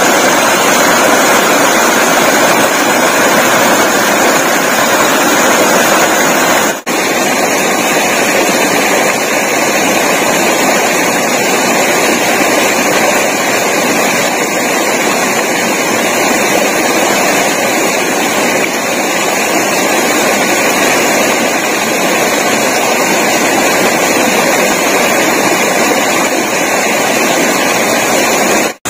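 Forest stream water rushing over rocks: a steady hiss of flowing water, briefly cut off about seven seconds in before carrying on at the same level.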